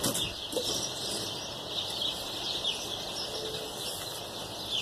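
Soft rustling of chicken wire and a cloth tape measure being handled, over steady chirping of birds in the background.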